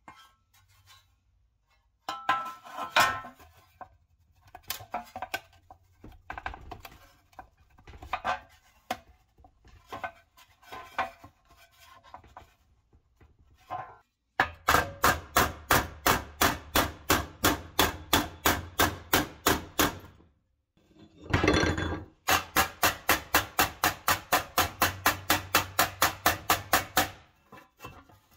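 Sheet-steel toy truck parts being handled with scattered light clicks and scrapes, then a small ball-peen hammer striking the pressed-steel truck bed against a steel bench anvil in quick, even, ringing taps, about four a second. The taps pause briefly about three-quarters of the way in, where there is one longer, louder clatter, then resume.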